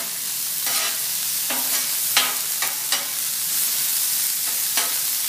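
Corn and bacon sizzling in bacon fat on a Blackstone flat-top steel griddle, a steady frying hiss. A steel spatula scrapes and taps against the griddle several times as it tosses the corn.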